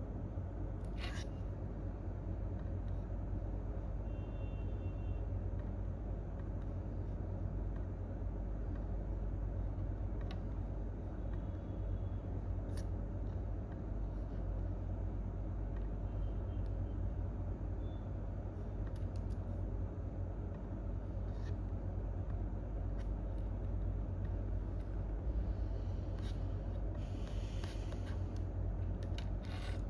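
Steady low hum of office room tone, with a few isolated clicks scattered through it and a short flurry of clicks near the end.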